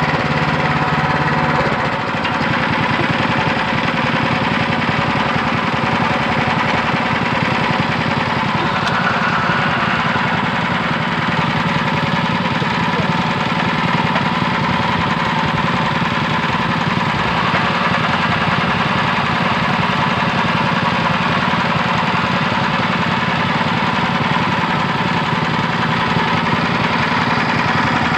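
Engine-driven rotary well-drilling rig running steadily, turning the drill pipe into the borehole. About two seconds in, its low steady hum gives way to a fast, even pulsing beat.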